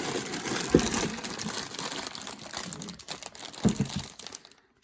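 A cardboard LEGO set box being opened by hand, its packaging crinkling and rustling, with two dull knocks, one about a second in and one near the end.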